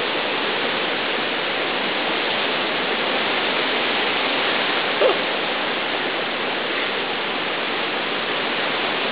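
Steady rush of hurricane wind and driving rain, an even noise that does not let up, with a brief faint sound about five seconds in.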